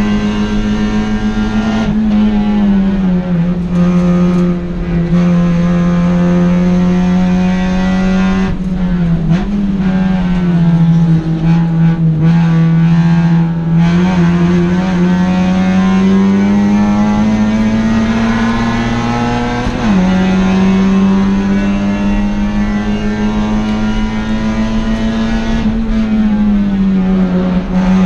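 Honda Civic Si race car's four-cylinder engine heard from inside the cabin under race load, with steady road and wind noise. The engine note falls a few seconds in and dips again, then climbs steadily for about ten seconds under full throttle, drops sharply at an upshift, and falls again near the end as the car slows for a corner.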